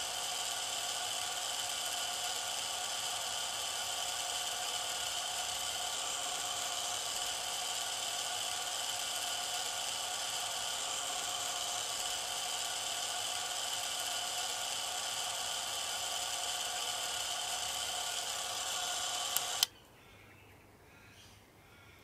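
Keystone K-615 Super 8 film camera running with its shutter release locked on: the steady whir of its electric motor and film drive. It stops with a click near the end.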